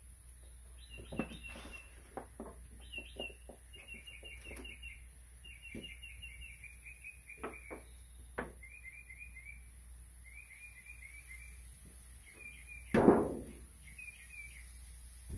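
Metal tongs clicking and knocking against a grill grate and a foil pan as chicken leg quarters are laid on, with one louder knock about 13 seconds in. A songbird sings repeated short chirping trills throughout.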